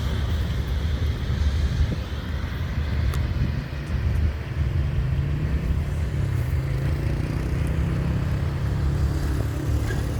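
Freight cars of a train rolling past on the rails: a steady low rumble of steel wheels on track.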